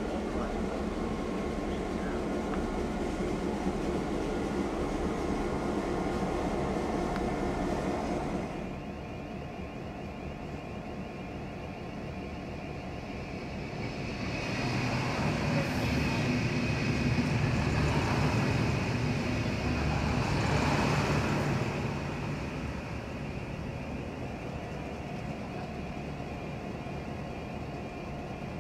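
Diesel locomotives of the S, T and B classes, all with EMD two-stroke engines, hauling a grain train past: engine note and wheels on rail. The sound drops suddenly about eight seconds in, then grows much louder between about 14 and 22 seconds as the locomotives pass close, and eases off after that.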